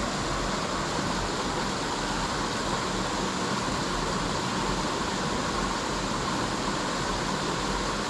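Flowing water of a small forest stream, a steady even rush with no breaks.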